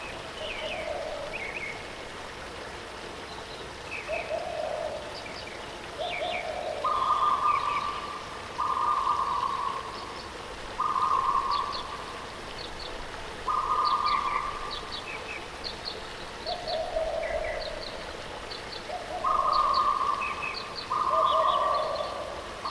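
Birds calling over the steady rush of a waterfall. Repeated held notes, each about a second long, come at a higher and a lower pitch. Quick high chirps are scattered between them.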